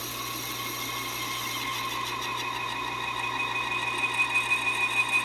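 Metal lathe running as a form tool is plunge-fed into a cast piston to cut a piston-ring groove. A high-pitched squeal from the cut builds through the second half, pulsing several times a second as the tool nears full groove depth.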